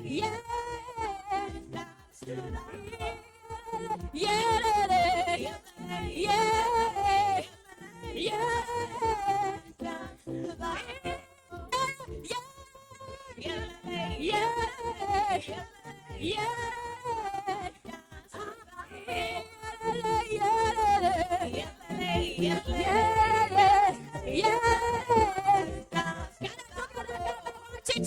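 Praise-and-worship singing: a voice sings a melody in phrases of a second or two, with short breaks between them.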